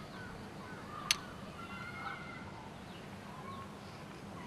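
Faint outdoor background with a steady low hum and distant bird chirps, broken by a single sharp click about a second in.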